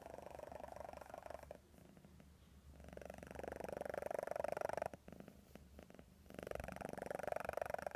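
Domestic cat purring, a rapid fine rattle that swells up and fades back three times with its breathing.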